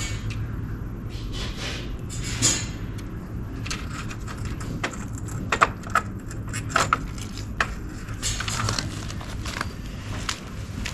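Hands handling tools and hardware against a brick wall: scattered light clinks, taps and rustling, over a steady low hum.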